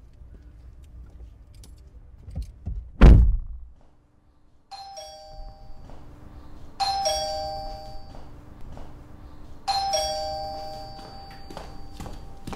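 A loud thump about three seconds in, then, after a brief silence, a two-tone ding-dong doorbell chime rings three times, a couple of seconds apart, each chime ringing on and fading.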